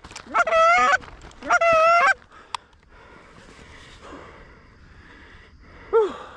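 Canada goose call blown by a hunter: two long, loud honks in the first two seconds, each rising and then breaking downward at the end, then a single short honk near the end.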